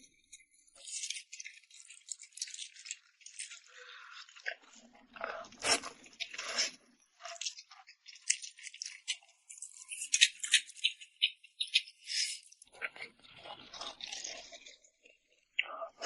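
Close-miked eating sounds as someone eats rice noodles tossed in red chili oil: irregular wet mouth clicks, crunches and chewing noises, with a few fuller mouthfuls about five seconds in and again near the end.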